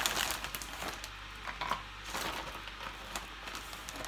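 Frozen raspberries being handled and dropped into plastic tubs: a string of irregular light clicks, rustles and small knocks.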